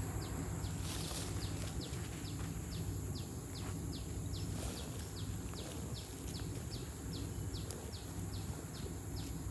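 Outdoor ambience of calling animals: a regular series of short, falling high chirps, about three a second, over a steady high-pitched insect drone. A brief rustle about a second in.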